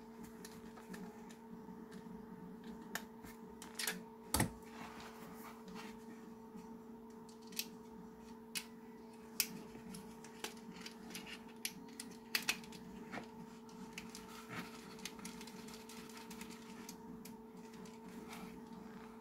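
Scattered small clicks and taps from hands handling a 3D-printed plastic assembly and a metal precision screwdriver while driving a screw, with one louder knock about four seconds in. A steady low hum runs underneath.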